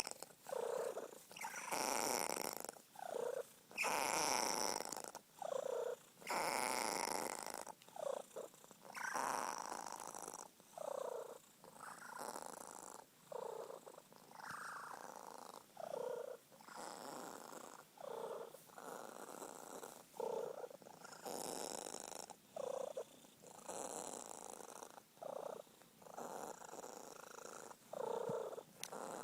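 Sphynx cat purring in a steady rhythm of breaths, each about one to two seconds long, many ending in a short falling note: the odd noise this cat makes when happy.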